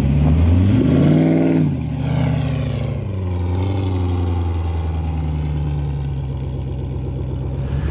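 Off-road buggy's engine revving up about a second in, then dropping back sharply and running steadily at low revs as it climbs a steep dirt mound.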